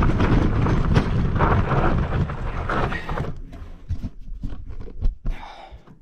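Mountain bike rolling over a dirt trail, with wind rushing over the microphone and the bike rattling. About three seconds in the noise drops away to scattered clicks and knocks.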